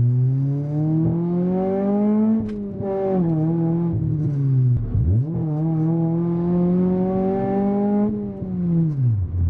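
Honda Civic SiR's DOHC VTEC four-cylinder engine heard from inside the cabin, revving up under acceleration. The note drops sharply about two and a half and five seconds in, as at gear changes, climbs again, then falls away near the end as the car eases off.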